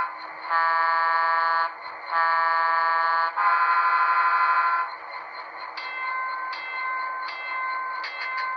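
Model diesel locomotive sound from a Soundtraxx Tsunami 2 decoder, played through a small round speaker in an HO scale F7: three air-horn blasts, the last two almost run together, over the steady hum of the idling engine sound. About five seconds in, the horn stops and the locomotive bell starts ringing in a steady, even rhythm.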